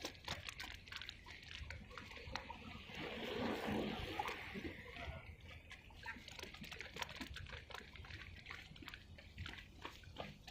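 Seawater splashing and sloshing in small irregular splashes and trickles, with a wave washing in more loudly from about three seconds in.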